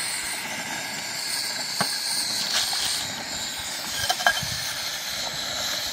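Propane cylinder-top burner hissing steadily under a covered pot of buckwheat, with a few light clicks about two and four seconds in.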